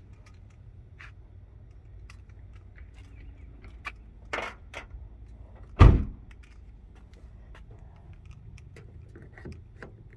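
Keys jingling with scattered light clicks and taps, and a single heavy thump about six seconds in, the loudest sound.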